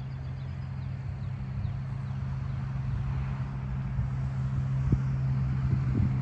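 A motor vehicle's engine hums steadily at a fixed low pitch and grows gradually louder.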